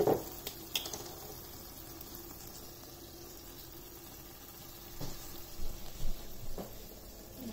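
Minced beef and gravy simmering in a pot on a low gas flame: a faint, steady bubbling hiss. A few light clicks come in the first second, and a couple of soft knocks come later on.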